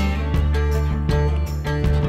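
Background music: a song with strummed guitar over a steady bass line.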